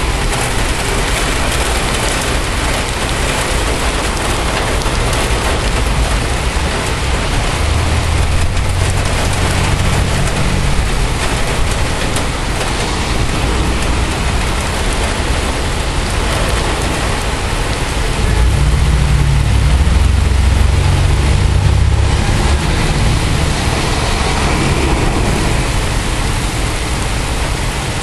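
Heavy rain pouring down steadily in a thunderstorm, with two stretches of low rumbling, one about a third of the way in and a longer, louder one past the middle.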